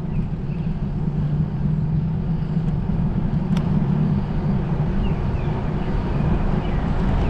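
Steady rumble of wind and tyre noise while riding a road bicycle, with a single click about halfway through.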